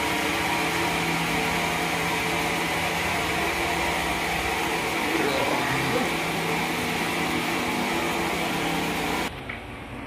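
Sawmill machinery running steadily: a loud, even mechanical hum with a high hiss. About nine seconds in it drops abruptly to a quieter, duller running sound.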